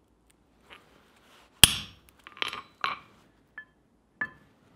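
A hammer strikes a hand punch once, sharply, about one and a half seconds in, cutting a disc from a thin sheet on a wooden block. Several lighter metal clinks and two short ringing ticks follow as the tools are handled and the hammer is laid down on the steel surface.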